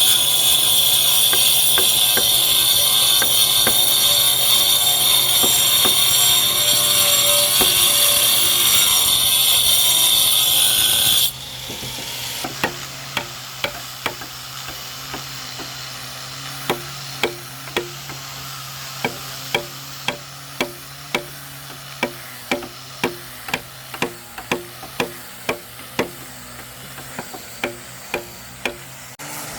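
A handheld power tool running steadily at high speed, cutting into wood, then shutting off abruptly about eleven seconds in. After that comes a quieter stretch of sharp, regular knocks, about one or two a second.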